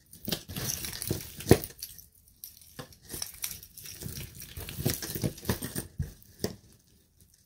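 Tangled costume jewelry being pulled apart and handled: metal chains, beads and pendants clinking and rattling together in quick clicks and rustles, with one sharper click about a second and a half in and a short lull near the two-second mark.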